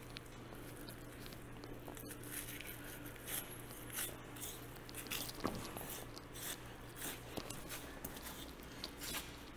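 Irregular short swipes of a 6-inch curved Victorinox knife slicing and scraping through thick, dry bison hide as it is pulled away from the carcass, over a steady low hum.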